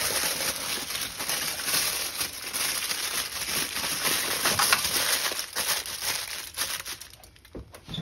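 Aluminium foil being crumpled and pressed down by hand to seal over a baking tray: a dense, continuous crackling that tapers off over the last second or two.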